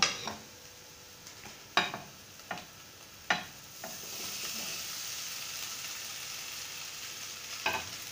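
A few sharp clinks against a non-stick pan, then, about four seconds in, a steady sizzle as cooked rice is tipped from a plate onto scrambled egg in the hot pan.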